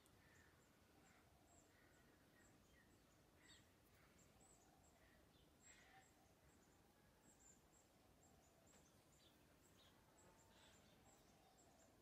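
Near silence: faint outdoor background with scattered faint, high-pitched chirps of small birds.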